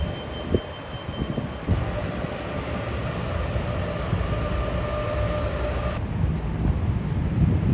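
City street traffic noise: a steady low rumble of vehicles with a faint steady whine above it. The sound changes abruptly twice, about two and six seconds in.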